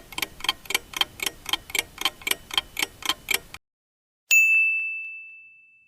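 Countdown-timer sound effect: a clock ticking fast and evenly, about four ticks a second, stops about three and a half seconds in, and after a short gap a single bell ding rings out and fades, signalling that the time to choose is up.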